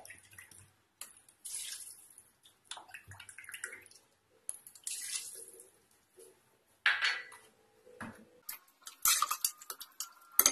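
Water poured in several separate splashes from a plastic bottle and a small bowl into an aluminium pressure cooker. Near the end a ladle clinks and scrapes against the cooker's side as the contents are stirred.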